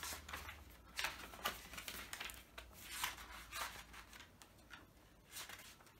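Pages of a paper diary being turned one after another while searching through it: a run of short, faint paper rustles and flicks at irregular intervals, thinning out near the end.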